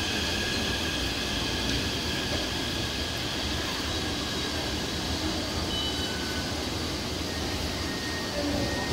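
Steady hum of Taipei Metro trains standing at an underground station platform, with a few faint high tones held over the din.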